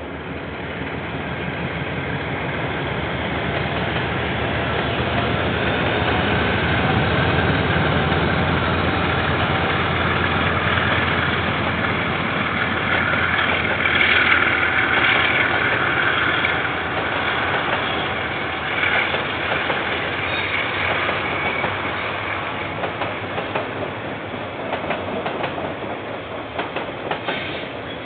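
KiwiRail diesel train passing: a low engine rumble builds over the first several seconds. The train then rolls by loudly and slowly fades, with wheels clicking over the rail joints near the end.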